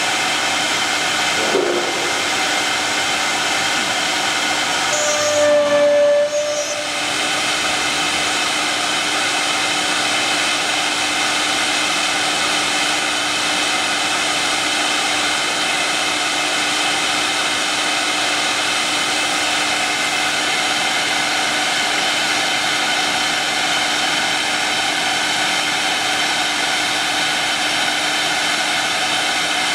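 CNC wood router's spindle running at speed and cutting a wooden board, a steady whine over cutting noise. It grows briefly louder, with a stronger tone, about six seconds in.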